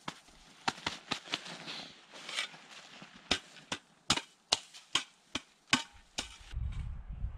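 A hand tool chopping at a wooden branch: quick runs of sharp knocks, about two to three a second, with a short break between two runs and some rustling in between. Near the end the knocks stop and a low rumble takes over.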